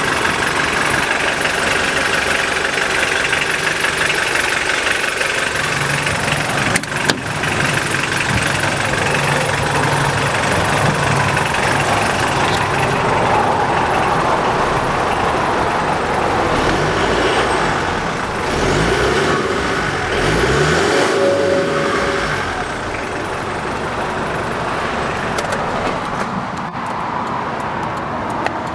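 A 1989 Mitsubishi Pajero's turbo-diesel engine running at idle. A sharp click comes about seven seconds in, and the pitch rises and falls a few times past the middle.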